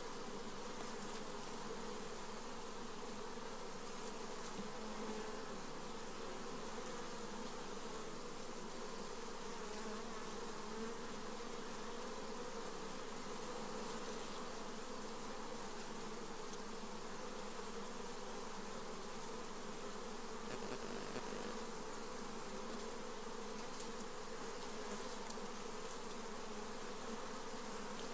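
Honey bees buzzing en masse: a steady, unbroken hum holding one pitch.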